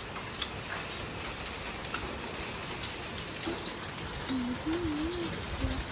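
Hail and rain falling: a steady hiss with scattered sharp ticks of hailstones striking.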